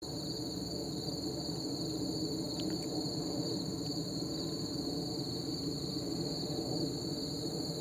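Cessna 172's engine droning steadily at reduced power on landing approach, under a steady high chirring of crickets.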